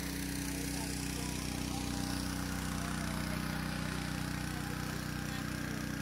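Motorboat engine running at a steady speed, with a steady rushing hiss over it.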